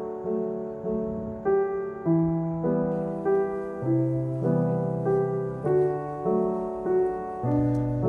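Background piano music: a gentle piano playing an even run of notes, a little under two a second, each ringing and fading.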